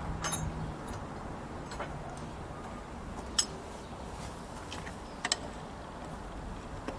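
A handful of light, irregular metallic clicks and taps from a spanner being worked on a lawn mower's wheel bolt.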